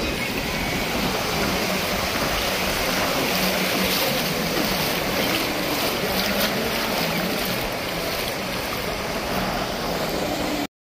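Steady rushing noise of beach surf and wind, cutting off suddenly near the end.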